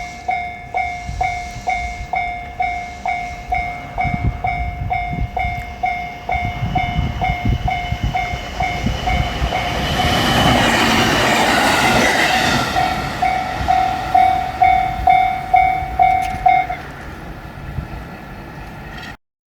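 Japanese level-crossing warning bell dinging in a steady two-tone pulse about twice a second while a train passes over the crossing, the train's noise loudest in the middle. The bell stops near the end, leaving a fading rumble.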